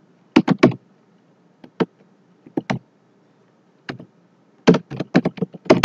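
Typing on a computer keyboard: irregular bursts of keystrokes, a few keys at a time with short pauses between, then a quicker run of keys near the end.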